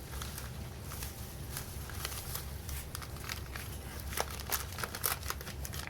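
Crinkling of packing material and light clicks and knocks of old metal hand tools being handled, coming more often near the end, over a steady low hum of water running in the house's pipes.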